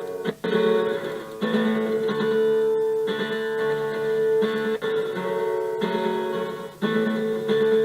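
Recorded acoustic guitar music played back through a digital delay (echo) effect, with sustained chords changing every second or so and a few brief dips in level.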